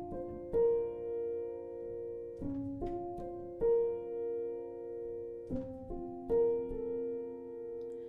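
Solo piano playing slow, sustained chords, a new chord struck every second or two and left to ring.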